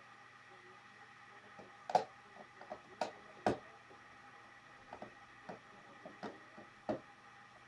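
Plastic building bricks being handled and pressed together: a run of irregular sharp clicks and taps, the loudest about two seconds in, over a faint steady hum.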